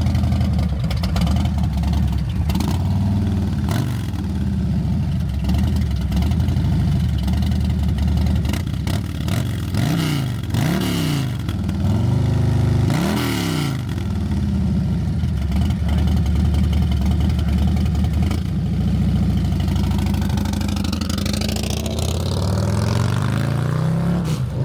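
Harley-Davidson Milwaukee-Eight 117 V-twin on a Sawicki mid-length exhaust, idling and revved a few times, with a slow rise in revs near the end. The exhaust note is much louder but deep and throaty.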